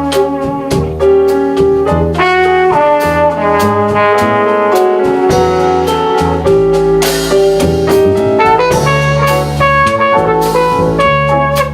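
Live acoustic jazz quartet playing: a brass horn carries the melody in long held notes over piano, walking double bass and drums with steady cymbal strokes.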